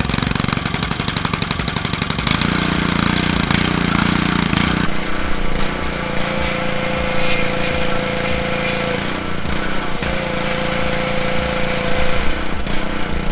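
Small gasoline engine of a pressure washer running with a fast, even chug. From about halfway on it works as the foam cannon sprays, with a steady spray hiss and a held whine that breaks off briefly and then resumes.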